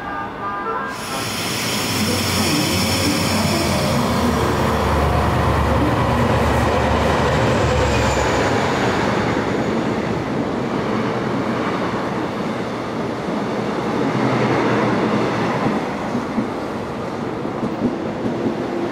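Electric commuter train running past on the rails, a low hum under the rumble of the wheels for the first several seconds, then rumbling with regular clicks over the rail joints near the end.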